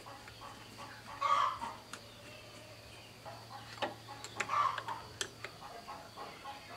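Hens clucking, two calls about three seconds apart, with a cluster of sharp clicks in the middle from the fuel filter being handled.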